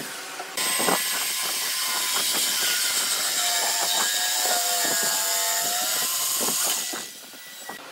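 Electric jigsaw cutting curves through a thick wooden board, running steadily with a high-pitched rasp. It starts about half a second in and stops near the end.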